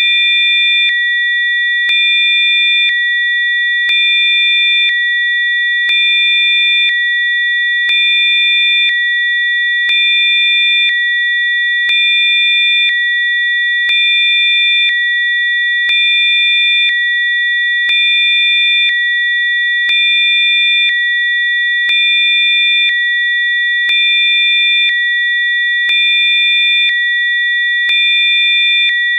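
Electronically generated Rife frequency tones: several steady, high-pitched sine tones sounding together, with the level and a faint extra tone stepping on and off about once a second.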